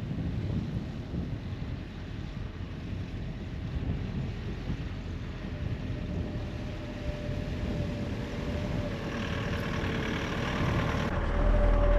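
Car engine running as it drives on sand, with wind buffeting the microphone. A steady engine note comes in about halfway and grows louder, and near the end the sound changes abruptly to a much louder low rumble.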